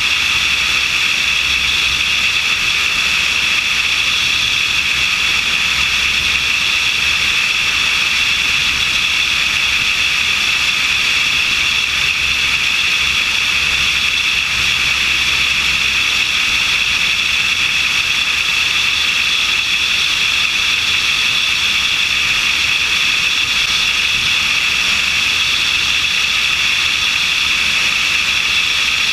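Steady rush of airflow over a wing-mounted camera on an aircraft in level flight, with a faint low engine drone underneath.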